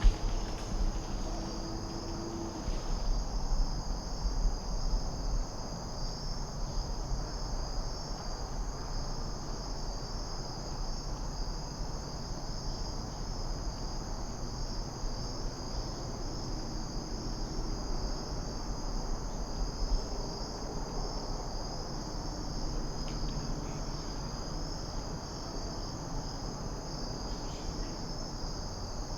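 A steady, unbroken chorus of crickets singing high and continuously, over a low rumble of wind or handling noise. A single sharp knock sounds right at the start.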